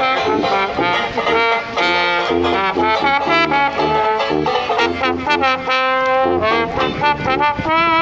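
Street trio of trombone, banjo and tuba playing a tune together, the tuba giving low bass notes under the trombone and the banjo's plucked chords.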